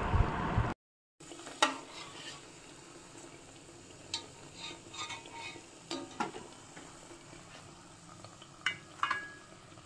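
Urad dal and onion vadagam frying in oil: a faint steady sizzle, with a metal slotted spoon clinking against the pan a handful of times as the pieces are stirred and lifted out. It opens with a louder rushing noise that cuts off under a second in.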